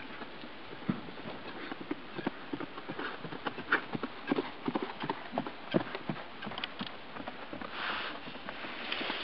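Quarter Horse mare walking on grass under a rider, her hoofbeats making irregular soft knocks that are loudest in the middle as she passes close.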